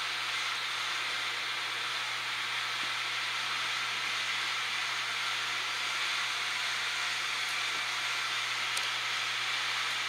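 Steady hiss over a faint low hum, unchanging throughout, with a faint tick near the end.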